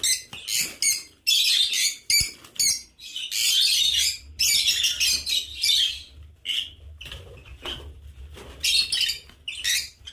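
African lovebirds chirping and screeching in rapid, shrill bursts, one call on top of another. There is a single short knock about two seconds in.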